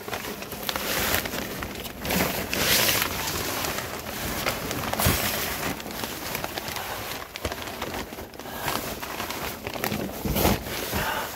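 Plastic vapor barrier sheeting crinkling and rustling under a person crawling across it, in irregular surges.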